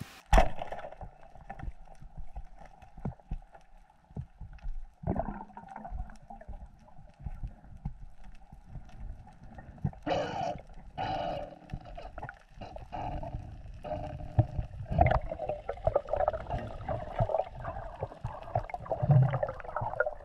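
Muffled underwater sound recorded while freediving: water gurgling and moving around the diver, with scattered dull knocks and thuds, busier about halfway through and again near the end.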